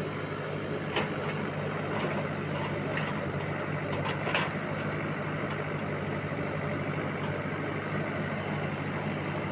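Diesel engine of a demolition machine running steadily at idle, with a few short clanks in the first half, the loudest about four seconds in.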